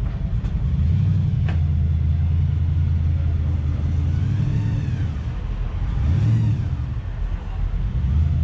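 Low, steady rumble of car engines, with vehicles driving past about four seconds in and again around six seconds.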